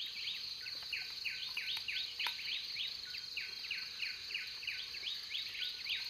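Jungle dawn chorus: a steady high insect drone with a rapid, even series of short falling chirps, about three or four a second.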